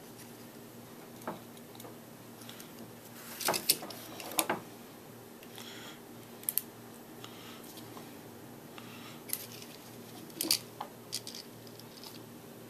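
Small robot arm kit parts and screws being handled and fitted together: irregular light clicks and taps, a few short rattles, over a low steady hum.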